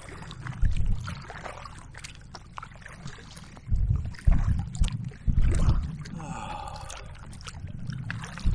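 Water lapping and trickling around a kayak on choppy water, with gusts of wind rumbling on the microphone several times.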